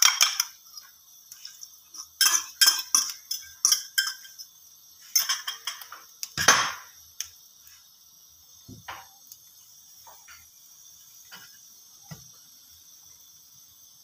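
A metal fork clinking and scraping against a glass bowl as beaten egg is poured out into a frying pan. Clusters of quick clinks in the first six seconds, one louder clink about six and a half seconds in, then only a few faint ticks.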